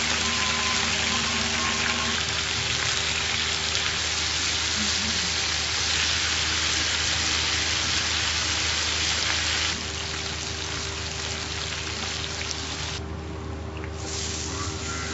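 Seasoned chicken pieces and shrimp sautéing over high heat in oil in a nonstick skillet, a loud steady sizzle. It drops to a quieter sizzle about ten seconds in and stops for about a second near the end. A steady low hum runs underneath.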